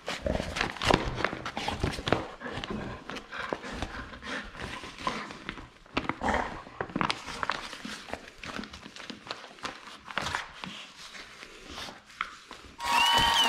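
Newspaper and glossy flyers rustling and crackling in quick, irregular bursts as a golden retriever puppy noses and mouths through them. Music starts suddenly just before the end.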